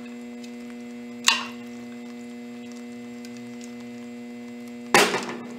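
Steady electrical hum with two sharp clinks of kitchen utensils, one about a second in and a louder one near the end.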